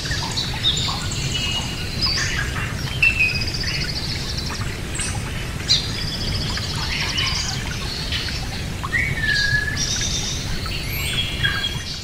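Birds chirping and singing, with many short high calls and quick trills from several birds, over a steady low background rumble.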